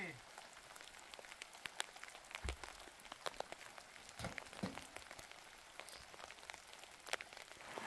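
Light rain falling, an even hiss with many scattered drip ticks, and a few soft low knocks in the middle.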